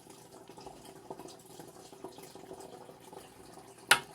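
Water trickling and dripping steadily in a turtle tank, with one sharp, loud click near the end and a softer one right after.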